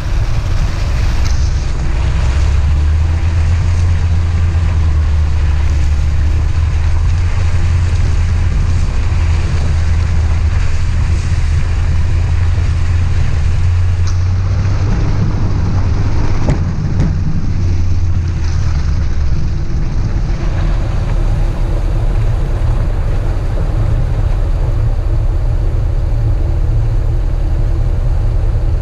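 A car being driven: a steady, loud low engine and road drone with wind noise, which shifts in tone partway through.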